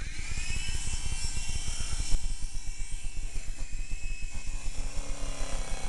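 Small toy remote-control helicopter's electric motor and rotors spinning up with a rising whine and a fast rotor flutter, then running steadily. One brief knock about two seconds in.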